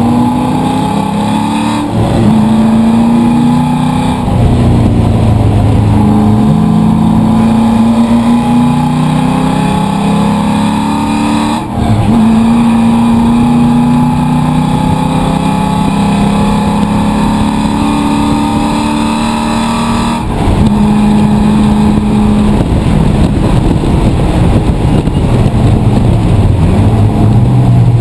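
Race car engine running hard, its pitch climbing and falling as it accelerates and slows, with several brief dips where the throttle lifts.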